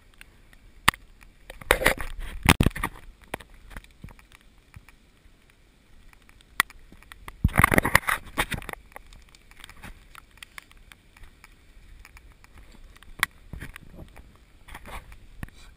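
Rustling, brushing and scraping on a body-worn action camera as the wearer moves through spruce undergrowth, in two louder bursts about two seconds in and about eight seconds in, with scattered sharp clicks between.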